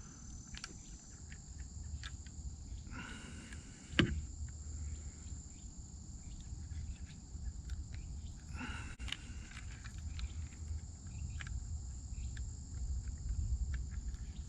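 Steady high-pitched insect chorus with scattered clicks and rustling of handling. One sharp knock about four seconds in.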